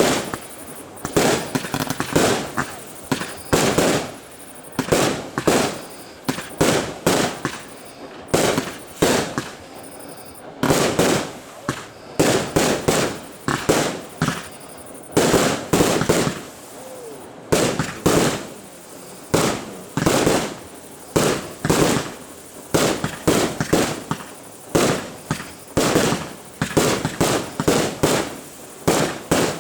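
Fireworks display: a steady run of loud bangs, about one or two a second, each trailing off briefly.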